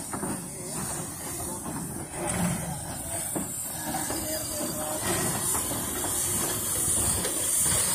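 NGG16 Garratt steam locomotive moving slowly, with a steady high steam hiss that grows louder as it comes closer, over a low rumble.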